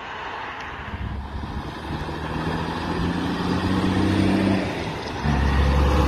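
Semi tractor's diesel engine running as the truck drives up and passes close by. Its low engine note grows louder, drops away briefly about two-thirds through, then comes back louder near the end.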